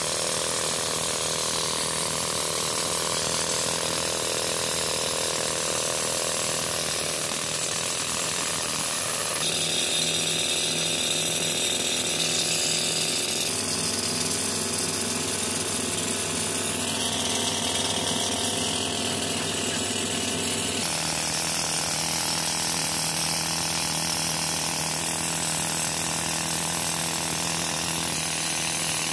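Pneumatic rock drill, air-fed by a tractor-driven compressor, hammering steadily into hard rock. Its tone changes abruptly about a third of the way in, near halfway and again about two-thirds of the way through.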